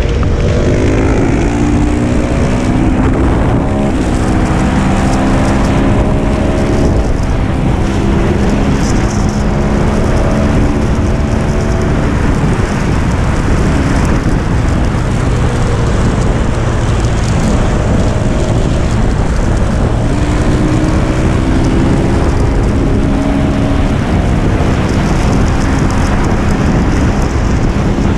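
KTM 690 SMC R's single-cylinder four-stroke engine pulling hard on track, its revs climbing and dropping back again and again through the gear changes. Heavy wind noise on the helmet microphone runs under it.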